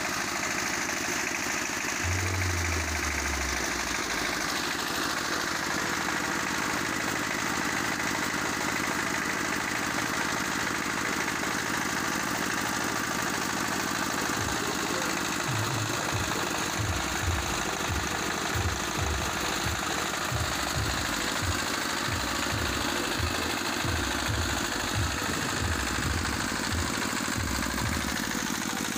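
Donghai single-cylinder horizontal diesel engine running steadily, belt-driving an alternator to power a sound system. From about halfway through, a low thudding repeats underneath.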